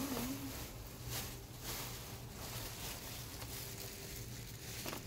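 Soft rustling handling noises over a steady low hum, with a few brushy strokes about a second in and shortly after.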